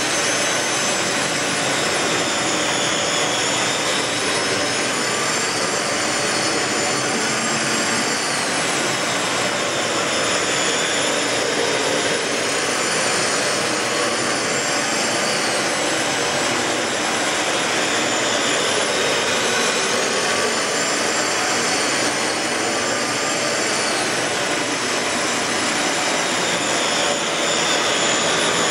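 Dyson DC15 Ball bagless upright vacuum cleaner running steadily, its high whine wavering up and down in pitch every four to five seconds.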